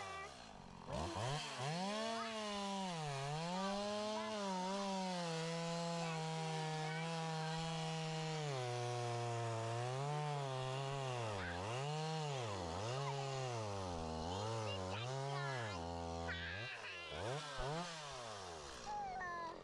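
Chainsaw running while felling a tree. Its pitch rises and falls again and again as the throttle is worked and the saw loads in the cut, with a few seconds held steady at high speed in the middle.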